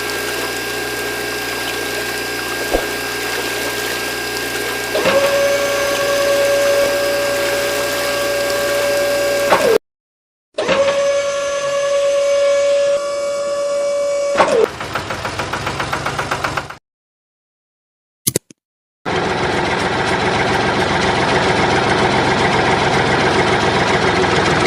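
Small electric motor running steadily, heard in several short clips with abrupt cuts between them; a higher steady whine comes in about five seconds in and again after the first cut.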